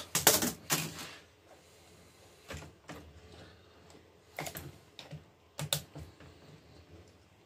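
Detached HP laptop keyboard clattering as it is set down, its keys rattling, followed by a few scattered light clicks and taps from a screwdriver and fingers working on the laptop's exposed mainboard.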